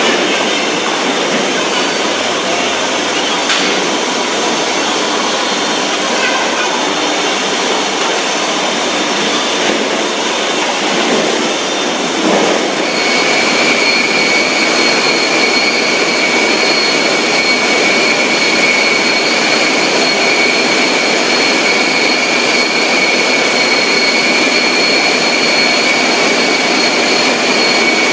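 Steady, loud running noise of factory machinery, with a steady high whine coming in about halfway through and holding.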